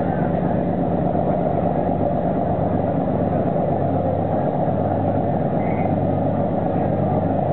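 A boat's engine running steadily: a continuous low drone with a hum underneath.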